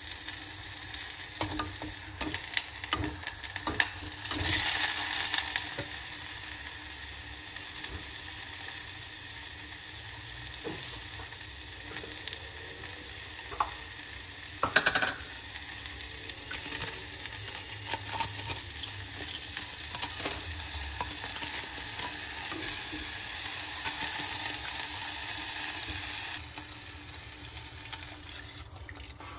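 Frozen sliced meat sizzling in a hot black earthenware pot on a gas burner. A steady hiss runs under scattered clicks and knocks of a utensil against the pot, with one louder knock about halfway through.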